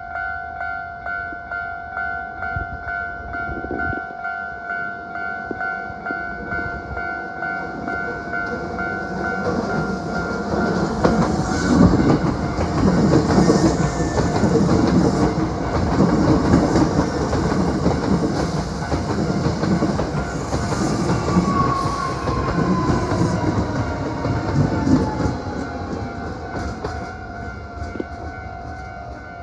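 A level-crossing warning bell rings steadily. Then a Hankyu 7300-series eight-car electric train passes with a loud rumble and rhythmic wheel clacks over the rail joints, swelling about a third of the way in and fading near the end. A falling whine sounds as it goes by.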